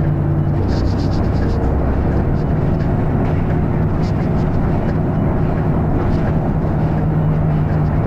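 Volvo B7RLE bus's diesel engine and ZF automatic gearbox running while the bus is driving, heard from inside the saloon as a loud, steady rumble. The engine's humming note drops away about half a second in and builds back later, and a few light rattles sound over it.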